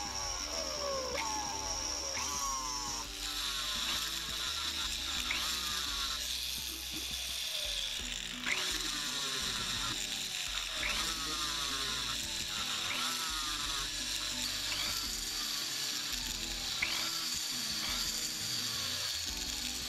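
Rotary tool running with a steady high whine as a burr, then a sanding drum and a rubber polishing wheel work a soldered gold watch case. The whine drops in pitch about three seconds in. Background music plays throughout.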